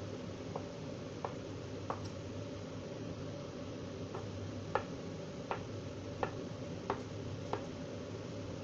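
Santoku knife slicing a vegetarian mock-chicken roll on a cutting board: sharp knocks as the blade reaches the board, about one every two-thirds of a second, with a pause in the middle, over a steady low hum.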